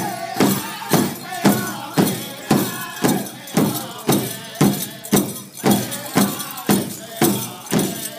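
Pow wow drum group singing a grass dance song over a steady unison drumbeat, about two beats a second.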